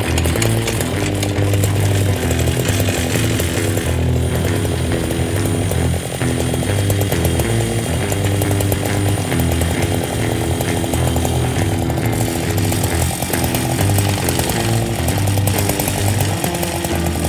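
Background music with a stepping bass line, over the steady running of a chainsaw mill cutting.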